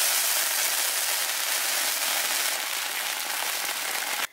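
Steady sizzle of pork offal being flash-fried in hot oil in a large wok. It eases off slightly and cuts off abruptly at the very end.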